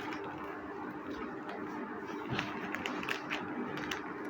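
Handling noise from packing a parcel: scattered light clicks and rustles over a steady faint hum.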